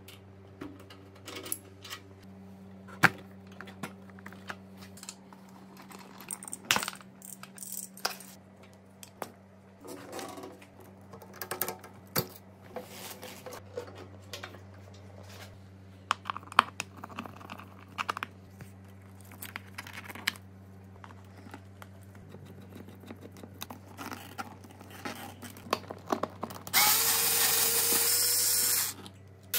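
Tool work on a motorcycle: scattered light clicks and clinks of a screwdriver and small metal parts. Near the end, a cordless drill-driver runs steadily for about two seconds, driving screws in a plastic body panel. It stops briefly, then starts again.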